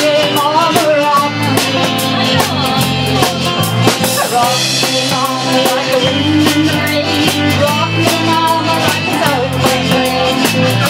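Live band playing a country-rock song: strummed acoustic guitar, bass guitar, a drum kit keeping a steady beat and a fiddle carrying a wavering melody.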